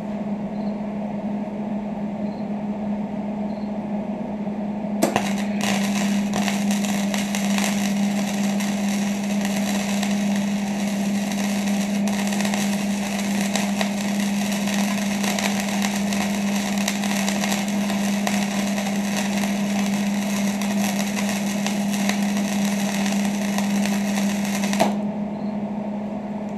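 Electric arc welder running a bead on steel: a steady low hum throughout, then about five seconds in the arc strikes and crackles steadily for about twenty seconds before cutting off near the end.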